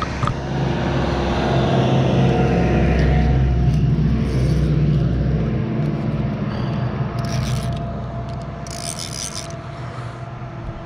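A motor vehicle passing close by on the road, its engine and tyre rumble building, peaking about four seconds in, then fading away. A few short high-pitched rasps come in the second half.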